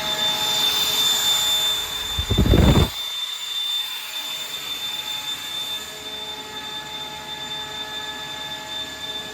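GRASSAIR RLR 30V direct-drive screw compressor running, with a steady high whine over its hum. About two and a half seconds in, a loud low burst lasts under a second; then the low rumble drops away, leaving a quieter, steady running sound.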